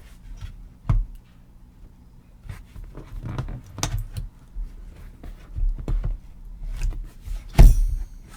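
Clicks, knocks and metallic rattling of a graphics card being worked at a computer case's expansion slot, with one loud thump near the end; the card does not seat.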